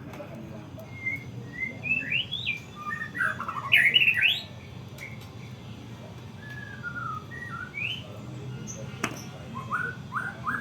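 White-rumped shama (murai batu) singing a varied run of clear whistled notes, many of them quick rising slurs, loudest about four seconds in and ending in a series of rising notes. A low steady hum runs underneath, and a single sharp click comes about nine seconds in.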